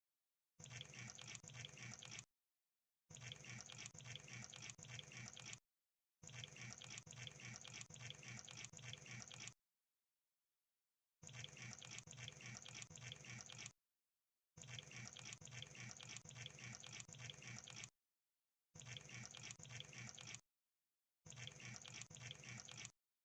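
Crab sound effect: rapid wet clicking and crackling in seven bursts of about two to three seconds each, each one cut off into dead silence.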